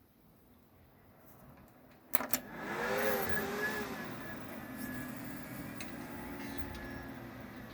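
A couple of sharp clicks about two seconds in, then Western Digital Black desktop hard drives reading files: a raspy grinding noise swells up and carries on steadily, with a brief wavering whine near its start. The drives make this noise only while reading, and the owner is unsure whether it is normal.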